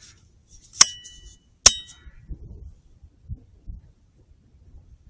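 Two sharp metallic clicks, each with a brief ringing tone, just under a second apart, followed by faint low rustling.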